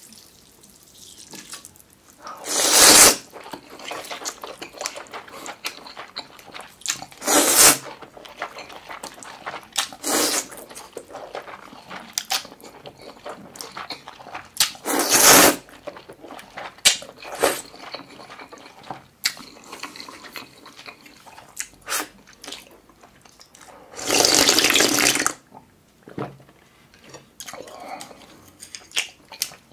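Loud slurps of cold buckwheat noodles, about five of them, the longest lasting over a second near the end, with wet chewing and small mouth clicks in between.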